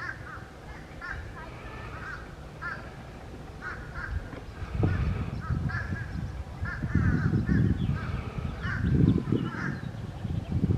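Birds calling over and over, short harsh calls about two a second. Bursts of low rumble come in from about five seconds in.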